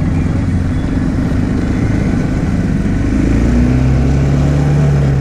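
Engine of a small Italika quad (ATV) running while being ridden, then settling into a steady note about three and a half seconds in.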